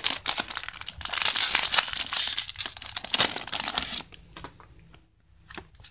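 Foil wrapper of a Yu-Gi-Oh! World Superstars booster pack being torn open and crinkled by hand, a dense crackling that stops abruptly about four seconds in.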